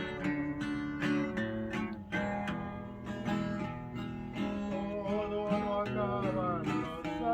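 Acoustic guitar music: a plucked melody over strummed chords, without words.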